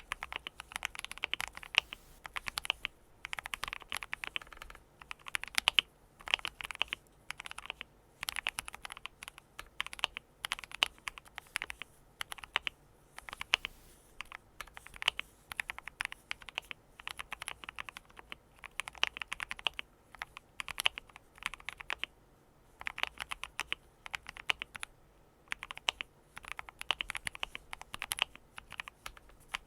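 KBD67 Lite R3 mechanical keyboard being typed on, its Gateron Brown tactile switches lubed with Krypton 205 and 105 and the case damped with silicone and PE foam. The keystrokes come in quick bursts of a second or two with short pauses between them.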